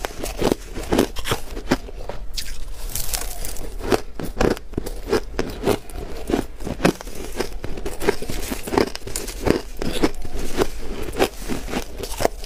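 A mouthful of dry, blender-shaved ice being chewed close to a clip-on microphone: a steady run of crisp crunches, about two to three a second.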